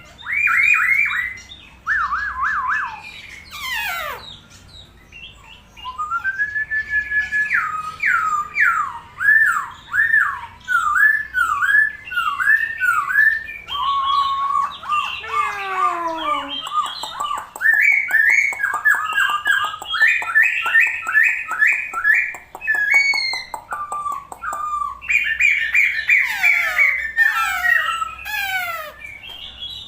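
A songbird singing a long, varied song: runs of repeated whistled notes, steep downward-sweeping whistles and fast trills, phrase after phrase with short pauses between.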